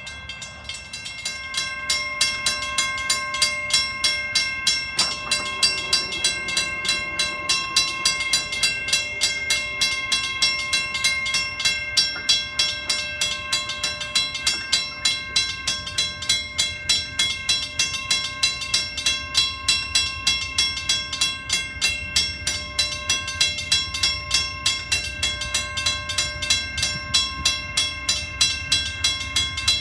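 Railroad grade-crossing warning bell ringing in a rapid, even series of strokes, about three a second, while the crossing's lights flash and gates are down for an approaching train.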